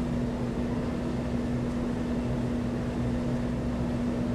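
Steady background hum with a constant low tone, unchanging throughout.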